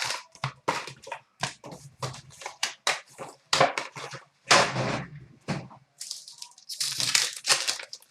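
Packs of hockey trading cards being torn open and handled: plastic wrappers crinkling and tearing in a rapid string of short, sharp rustles.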